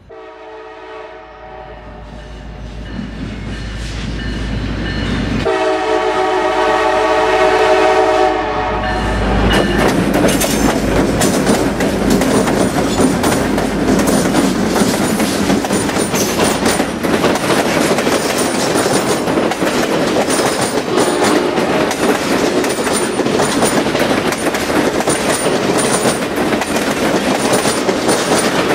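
Diesel locomotive air horn sounding a chord briefly at the start and again, longer and louder, about five to nine seconds in, as the train approaches. Then the locomotives and passenger cars pass close by at speed in a steady rumble, with wheels clicking over the rail joints.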